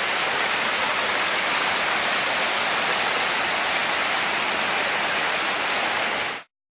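Small waterfall with water falling and splashing in a steady, even rush that cuts off abruptly near the end.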